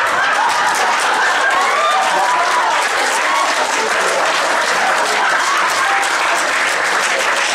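Audience applauding steadily, with a few voices mixed in.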